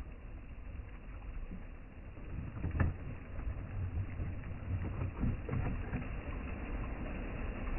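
Low rumble of sea and wind with a sharp click about three seconds in and a few lighter knocks after it.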